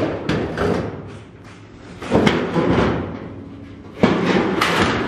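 Thin sectioned sheet-metal hood of a 1949 GMC pickup thumping and rattling as it is handled, three times about two seconds apart. It flexes like this because it is floppy and not yet braced.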